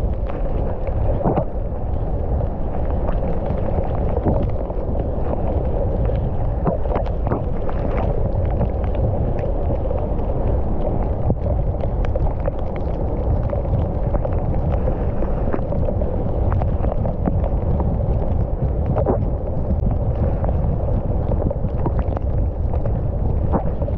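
Mountain bike rolling down a dry dirt trail: a steady low rumble of tyres and wind on the microphone, with scattered sharp clicks and rattles from the bike over rough ground.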